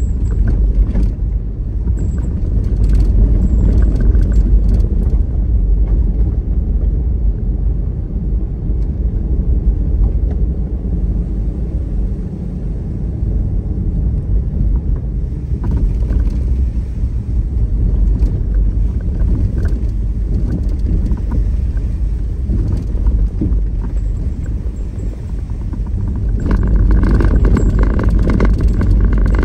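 Steady low rumble of a vehicle on the move, growing a little louder near the end.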